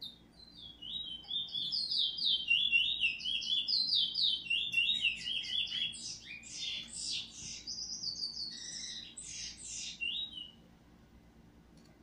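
Caged 'bullfinch' songbird singing one long, fast song of quickly repeated notes, which stops about ten seconds in. It is a tutor bird's song, or the young bird answering it.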